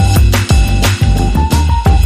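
Background music with a steady beat: drum hits about twice a second under sustained synth tones.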